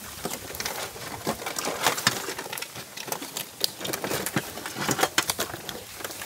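Live mud crabs crawling on an aluminium plate, their legs and claws tapping and scraping on the metal in irregular clicks.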